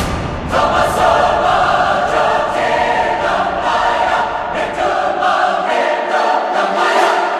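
Music with a choir singing, opening on a sharp hit, with the sound beginning to fade near the end.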